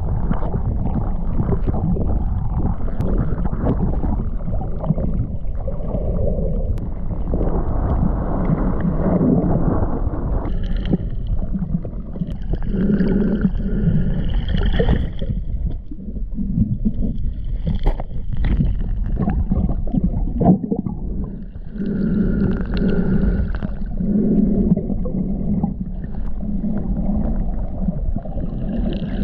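Muffled rushing and sloshing of sea water close around a camera in the water while hunting for crayfish. From about ten seconds in, repeated gurgling hums about a second long come through over it.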